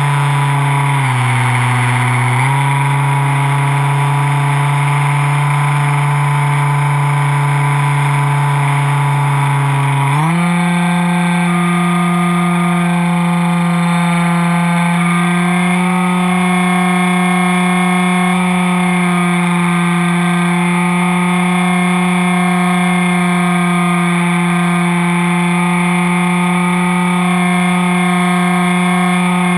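Electric motor and propeller of a foam RC plane, heard from a camera mounted on the plane, whining steadily in flight with rushing air noise. The pitch drops for a second or two near the start as the throttle eases. It steps up sharply about ten seconds in and climbs slightly a few seconds later.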